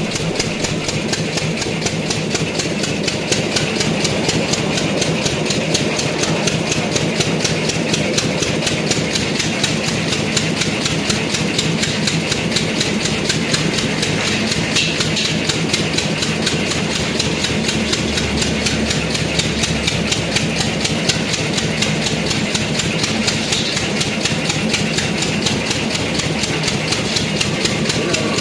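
An engine running steadily at idle with a fast, even pulse.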